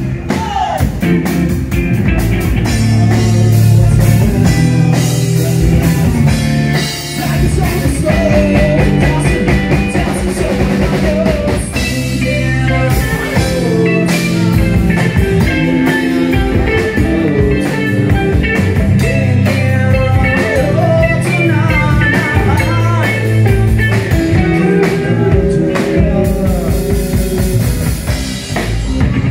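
Live rock band playing: electric guitars, electric bass and a drum kit.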